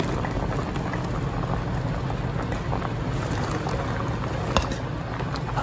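Coconut milk boiling in a pot, a steady bubbling hiss, as sliced bitter melon and string beans are tipped in from a plate. A single sharp click about four and a half seconds in.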